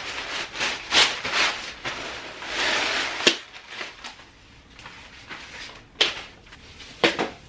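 Black nylon carry bag rustling and scraping as a folded pop-up mesh cat tent is slid out of it, with a sharp knock a little over three seconds in and two more later on.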